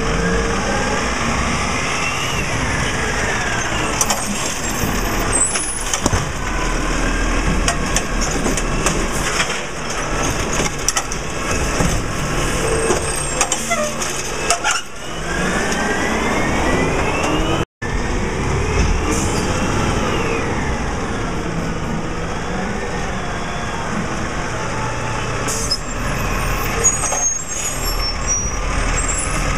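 Peterbilt 320 refuse truck with a Wayne Curbtender automated side-loading body at work: its engine and hydraulics whine up and down in pitch several times as the arm cycles, with clanks and hisses of air. The sound breaks off for an instant about two thirds of the way through.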